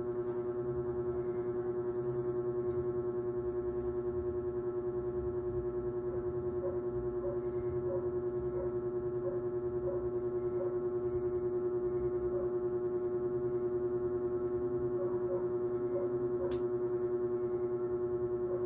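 Background music: one steady drone tone with many overtones and a slight regular pulse, like a singing bowl or gong.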